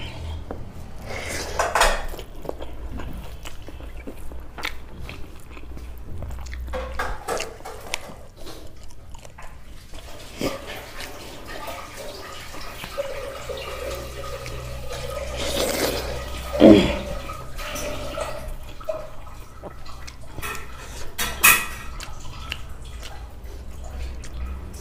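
Close-miked eating by hand: wet chewing and lip-smacking mouth sounds, with fingers scraping and gathering rice on a stainless-steel plate. A few louder smacks stand out, over a low steady hum.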